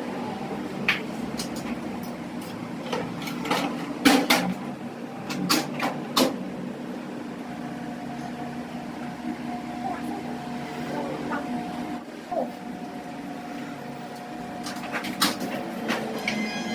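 Scattered sharp clicks and knocks over a steady low hum, with faint voices in the background.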